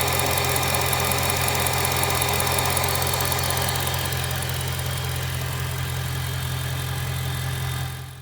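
BMW M3 E92's S65 V8 engine running steadily with a fast, even ticking: an exhaust manifold leak, the sound that is commonly taken for worn connecting-rod bearings. It fades away at the very end.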